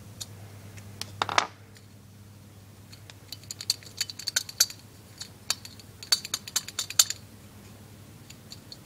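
Small metal clicks and clinks of a Kohler K-series carburetor's float pin and float hinge being worked by hand to push the tight pin out, with a quick run of sharp clicks from about three to seven seconds in.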